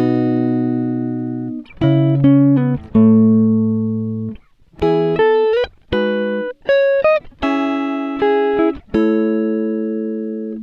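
Background music: plucked guitar notes and chords, each struck and left ringing until it fades, a few with short slides in pitch.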